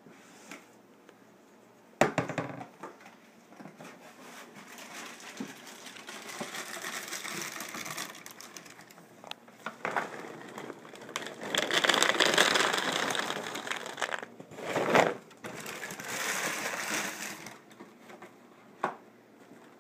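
Cereal box handled and its liner bag crinkling, then dry cereal poured onto a paper plate, with a sharp knock about two seconds in and another near the end of the pour.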